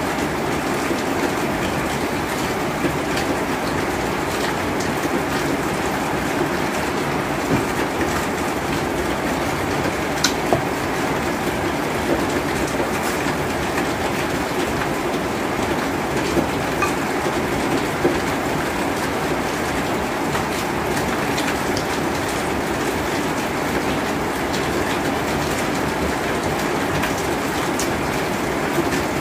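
A steady rushing background noise throughout, with occasional faint clicks and smacks of someone eating a stew by hand.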